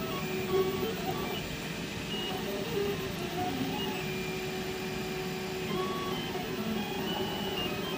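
Markforged 3D printer printing: its stepper motors whine in short steady tones that jump in pitch with each move of the print head, over a steady hiss.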